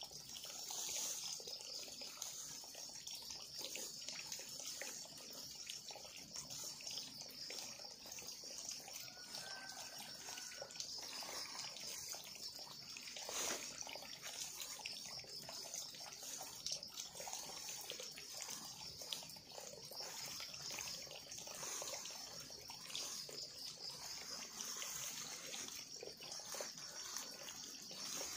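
Scraping and rustling of dry leaves and soil as the ground is worked by hand, over a steady high hiss, with a slightly louder scrape about halfway through.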